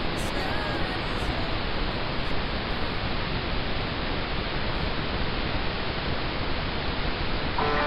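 Steady static hiss with no tune in it, between two songs of the soundtrack; music comes back in just before the end.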